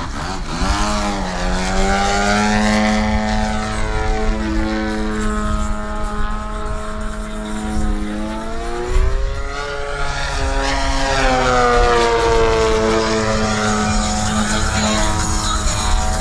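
Engine and propeller of an AJ Laser 230 radio-control aerobatic airplane in flight: a steady buzzing engine note that slides in pitch with throttle changes and manoeuvres, dipping and recovering near the start and again about nine seconds in.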